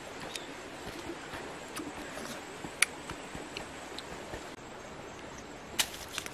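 Mangosteen being opened and eaten by hand: scattered small clicks and mouth sounds over a steady outdoor hiss, with a sharp crack about three seconds in and a louder one near the end.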